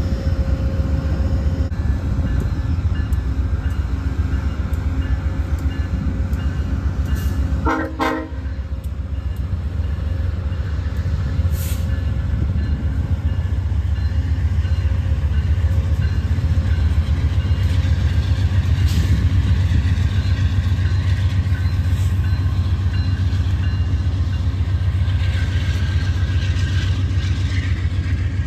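GE P42DC diesel locomotive pulling a passenger train out of a station: a steady low engine rumble that grows louder in the second half as it throttles up. A short blast of its multi-tone horn sounds about eight seconds in.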